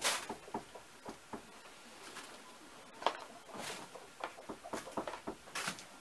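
Dry sawdust being scattered from a plastic bucket onto a wooden chicken-house floor: soft, irregular swishes and rustles, the loudest right at the start, with more about three seconds in and near the end.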